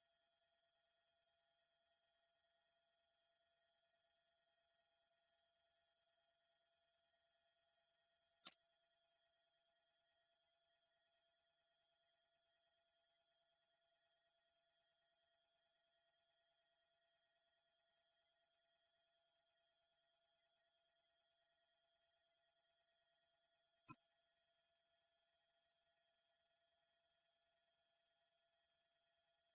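Dog whistle sound effect: a single steady, very loud and high-pitched pure tone. Two faint clicks interrupt it, about eight seconds in and again near the end.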